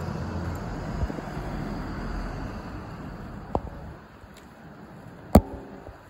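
Low rumble of distant road traffic that fades away about four seconds in. A small sharp click comes a little past halfway, and a louder sharp click with a brief ring follows near the end.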